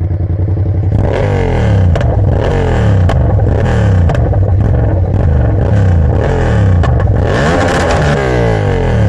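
Yamaha MT-07 parallel-twin engine on an open straight-pipe exhaust, idling briefly and then revved up and down over and over, with sharp cracks between the revs. The pops come from the remapped fuelling when the throttle is closed.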